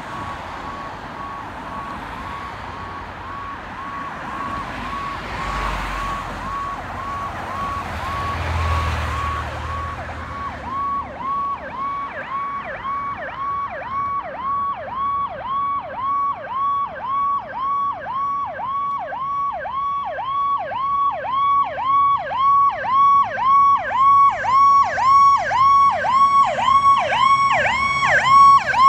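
Fire ladder truck's electronic siren, a Federal Signal PowerCall, cycling about twice a second and growing steadily louder as the truck approaches. For roughly the first ten seconds each pulse holds one pitch. After that each pulse dips in pitch and comes back up. A passing car's tyre noise and rumble swells around the middle.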